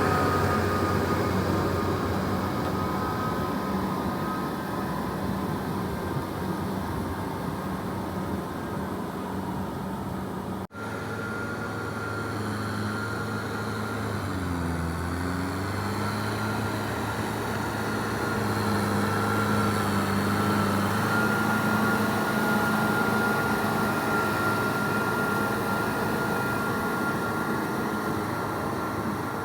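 Kubota M6040SU tractor's four-cylinder diesel engine running steadily under load while ploughing, with a faint whine over the engine note. About halfway through, the engine speed briefly dips and recovers.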